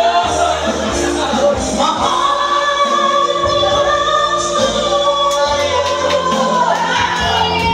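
A man singing into a microphone through a PA system over backing music, holding long notes.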